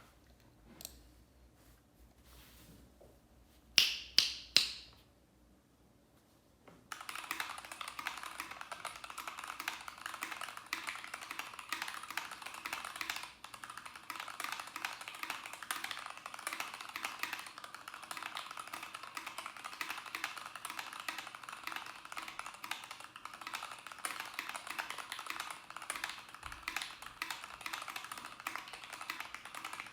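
Three sharp clacks about four seconds in, then from about seven seconds continuous fast typing on a mechanical keyboard with Tealios v2 linear switches.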